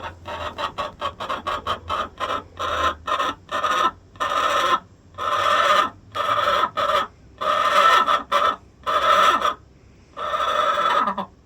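A chicken calling loudly. It starts with a fast run of short clucks, several a second, then gives a string of drawn-out squawks about half a second to a second long each. The last and longest one comes near the end.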